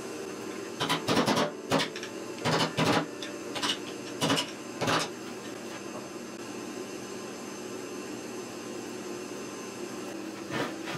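Metal parts of an old bench grinder motor clinking and knocking as the wheel flange is worked off the rusty shaft: about nine sharp knocks over the first five seconds, then only a faint steady hum.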